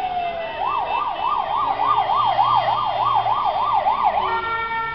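Ambulance siren switching from a slow falling wail to a fast yelp that sweeps up and down about three times a second, then changing about four seconds in to steady held tones.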